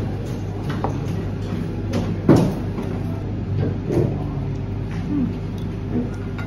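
Restaurant room sound: a steady low hum with faint background voices, broken by a few light clicks of a small spoon against a cut-glass dish, the sharpest about two seconds in.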